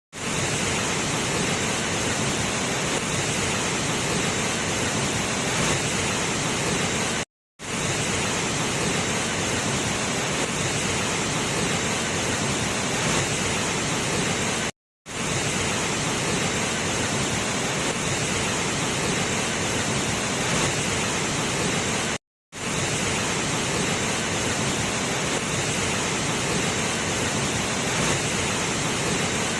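Waterfall rushing: a steady, even hiss of falling water that cuts out to silence for a moment three times, about every seven and a half seconds.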